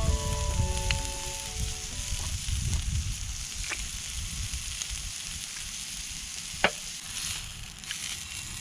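Wood campfire crackling and hissing, with scattered sharp pops, the loudest about two-thirds of the way through. A short run of musical notes fades out in the first two seconds.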